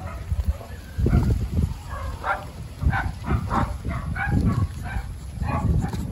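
Puppies yipping in a string of short, quick barks, about two or three a second, over a low rumble.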